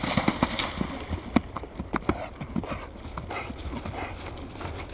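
Hoofbeats of a cantering horse, with splashing in the first second or so as its hooves strike the shallow water of a water jump, then hooves on turf.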